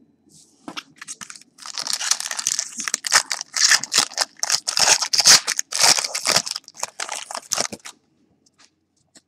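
Foil wrapper of a 2011 SP Authentic football card pack being torn open and crinkled in the hands: a dense run of crinkling and tearing that starts about a second and a half in and stops about eight seconds in.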